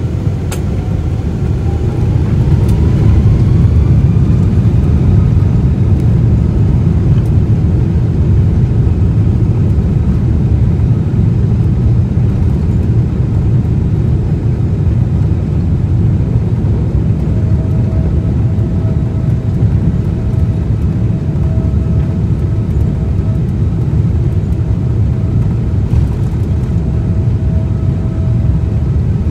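Boeing 777-200ER's Rolls-Royce Trent engines spooling up to takeoff thrust, heard from the cabin: a whine rising in pitch over the first few seconds as the roar swells, then a loud, steady roar as the jet rolls down the runway. A faint steady tone joins partway through.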